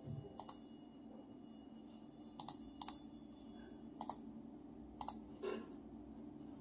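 Scattered sharp clicks at a computer, about eight at uneven intervals, some in quick pairs, over a faint steady hum.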